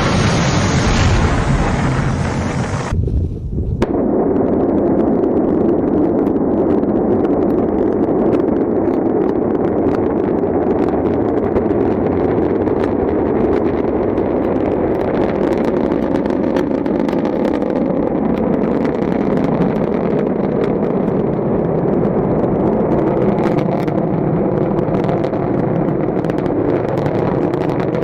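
Continuous loud rumble of rocket exhaust, with scattered crackles. About three seconds in, it cuts to a duller, more muffled recording of the same kind of rumble.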